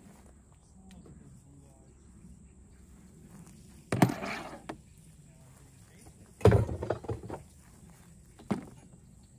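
Clatter of camp gear being handled at a truck tailgate. A propane hose is laid onto a folding table with a knock and short rattle about four seconds in. The loudest knock and rattle comes a couple of seconds later as a small propane cylinder is lifted out, and one sharp knock follows near the end.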